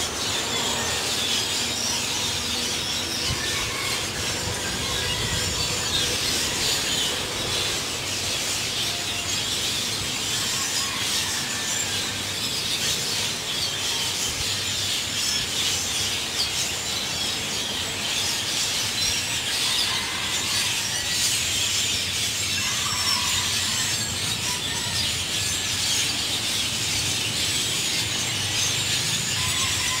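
A large flock of birds calling nonstop in a tree: a dense, noisy chorus of many overlapping high-pitched chirps and squeaks.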